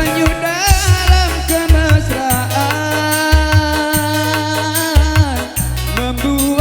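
Dangdut music from an orgen tunggal keyboard setup: a lead melody that slides and bends in pitch over a steady drum-and-bass rhythm with regular low beats.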